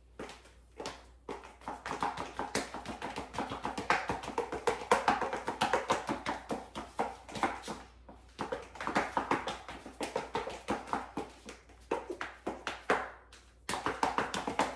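High-heeled shoes clicking on a ceramic tile floor as the wearer walks back and forth: a quick run of sharp heel strikes, pausing briefly twice.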